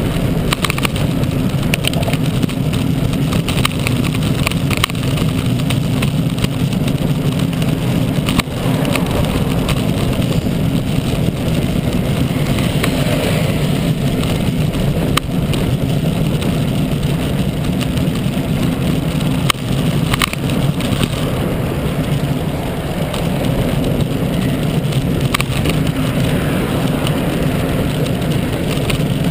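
Steady rush of wind and road noise on a camera riding along on a moving road bicycle, with car traffic going by in the lanes alongside.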